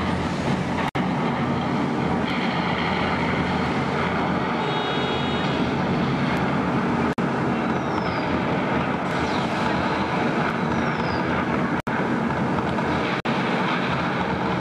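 A man-made volcano attraction erupting: a dense, steady rumble and rush of the flame and water effects, with no let-up. The sound cuts out for an instant four times.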